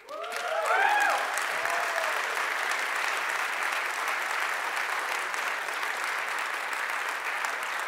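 Conference audience breaking into steady applause, with a few cheers in the first couple of seconds.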